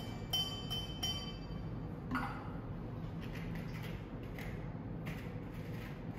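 Stainless steel jigger clinking against a metal cocktail shaker tin four times within the first second, each clink ringing briefly, as syrup is tipped into the tin. A softer knock follows about two seconds in, then faint clicks as a syrup bottle's cap is worked open.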